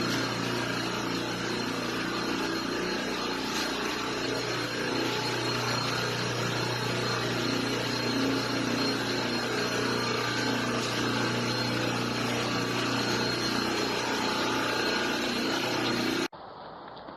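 An engine running steadily at an even speed. Near the end it cuts off abruptly to a quieter sound.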